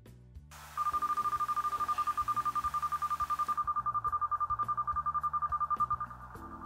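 Beacon finder's electronic alert sounding: a high beep at one steady pitch, pulsing very fast like a phone ringer. It starts about a second in and gets quieter about six seconds in while it carries on.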